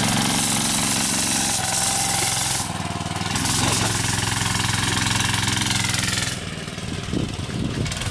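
Small Tecumseh 5 hp single-cylinder engine on a go-kart running steadily. Its level drops a little about two and a half seconds in and again near the end.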